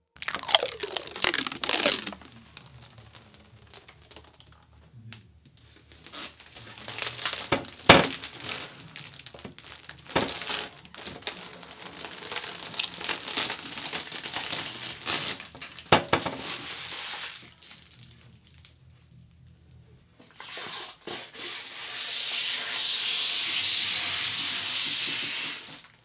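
Clear plastic protective film being crinkled, torn and peeled, with scattered sharp clicks and knocks from handling the PC case. It goes quiet for a moment, then a longer, steadier stretch of tearing and crinkling fills the last several seconds.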